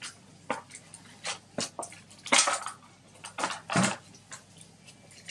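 Makeup brush packaging being handled and opened: an irregular run of plastic clicks and crinkles, with louder crackles about halfway through and again near the four-second mark.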